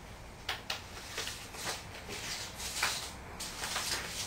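Loose sheets of paper rustling as pages are handled and turned over, a string of short soft rustles with the strongest a little before three seconds in.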